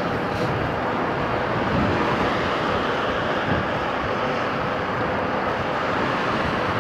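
Steady rush of wind over the microphone and road noise from riding a RadRover electric bike.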